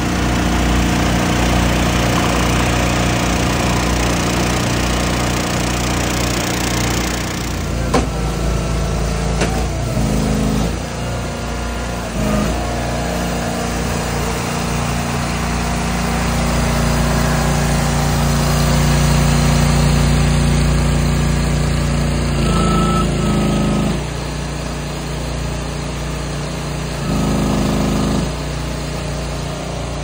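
Engines running steadily, their note stepping up and down several times as load changes, with a sharp knock about eight seconds in.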